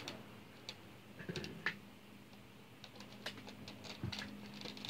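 Faint scattered clicks and light taps, a few small knocks spread irregularly, over a low steady hum.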